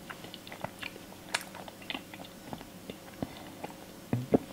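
A person chewing a mouthful of cake, with soft, irregular little mouth clicks. Two short, louder low sounds come near the end.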